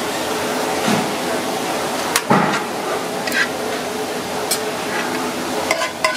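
A metal spoon clicking and scraping against a plate and a frying pan as sauce is spooned over cooked crab: a few sharp clinks spread through the seconds, over a steady kitchen background noise.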